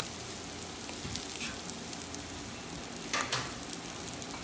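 Food sizzling steadily over a hot charcoal fire, with scattered small crackles: a freshly flipped chuck roast searing on the grill grate beside a cast iron skillet of onions, peppers and mushrooms. A brief louder clack about three seconds in.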